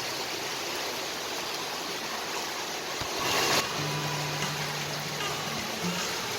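Heavy rain pouring steadily, with a brief louder rush about three seconds in. A few soft held music notes come in during the second half.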